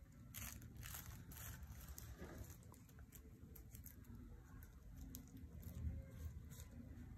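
Faint crinkling of a plastic sheet and light handling sounds as fingers smooth a small clay figure lying on it, a few scattered short crackles, most of them in the first second and a half.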